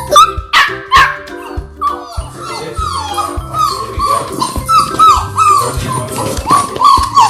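Several Labrador puppies whining and yipping in short, rising-and-falling cries, several a second, over background music.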